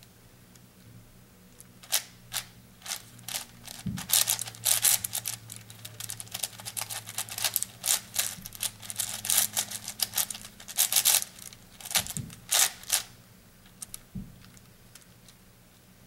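Plastic clicking and clacking of an 8x8 puzzle cube's layers being turned by hand, in irregular runs of quick turns with short pauses between them. The turning is sparse for about the first two seconds and dies down near the end.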